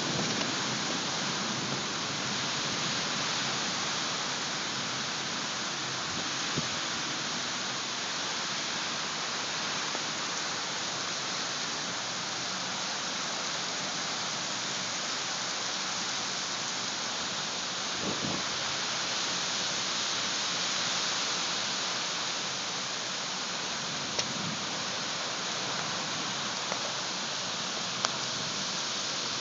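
Heavy thunderstorm downpour: a steady, even hiss of rain pouring down, with a few small sharp ticks now and then.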